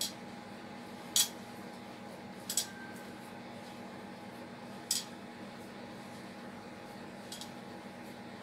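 Light metallic clinks as a hand mixes mashed potato and flour in a bowl, the metal bangle on the wrist knocking against the bowl: five short irregular clinks, the loudest just over a second in. A faint steady hum runs underneath.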